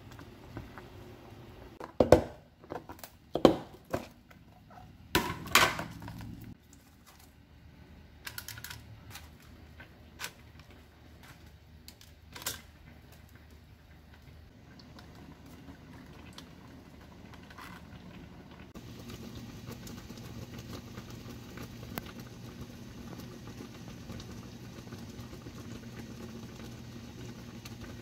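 Kitchen handling sounds: several sharp knocks and clatters of utensils and cookware early on, then lighter scattered clicks. About two-thirds of the way in, a steady low appliance hum sets in.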